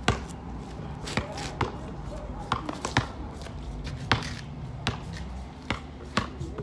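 Basketball bouncing on pavement: about eight sharp thuds at uneven spacing, several close together as the ball is dribbled near the end.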